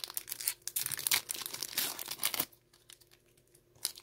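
Foil Pokémon booster-pack wrapper crinkling and being torn open by hand: a dense run of crinkles for about two and a half seconds, a pause, then a fresh burst of tearing near the end.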